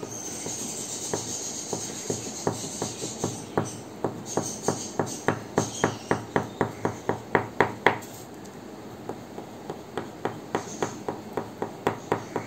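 Quick flicking strokes of a green crayon on paper, each stroke a short tap-and-scratch. They come about three to four a second and grow louder, stop briefly about eight seconds in, then go on sparser.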